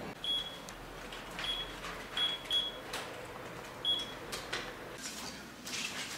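Short high-pitched electronic beeps, five of them at uneven intervals (two in quick succession), among light clicks and taps in a quiet room.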